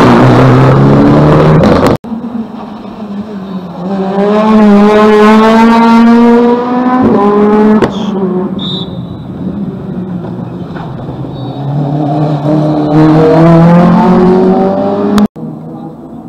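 Rally car engines accelerating hard past at close range, the revs climbing steeply, dropping briefly about seven seconds in, then climbing again near the end. The sound cuts off abruptly three times as one car gives way to the next.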